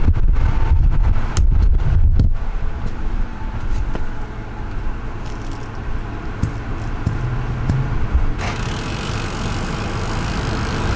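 Steady low rumble of a vehicle on the move, road and engine noise, louder for the first couple of seconds.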